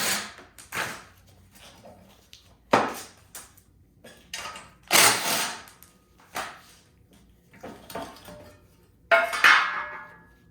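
Hand tools and metal parts clattering as the bolts holding the belt cover of a Yard Machines single-stage snowblower are taken out: a series of separate knocks and clinks, the loudest near the end with a short metallic ring.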